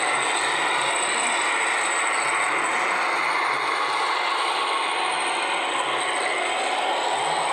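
Electric motors and gearboxes of radio-controlled scale trucks and construction machines running, a steady mechanical whirring with a thin high whine over it.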